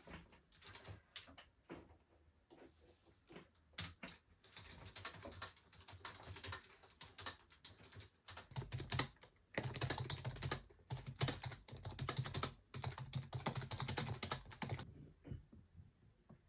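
Rapid, irregular light clicking and tapping, which gets busier and louder about halfway through and dies down shortly before the end.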